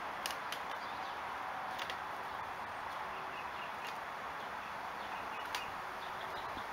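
Outdoor ambience: a steady hiss, a few sharp clicks, and faint high chirps near the end.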